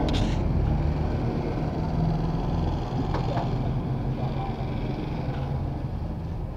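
Motor vehicle engine running close by, a low steady hum, with a couple of short knocks from street activity.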